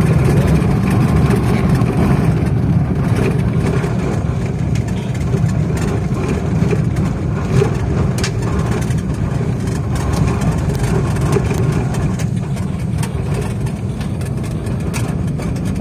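Suzuki DA17V kei van driving on a gravel road, heard from inside the cab: a steady low engine and road rumble, with scattered small clicks and rattles.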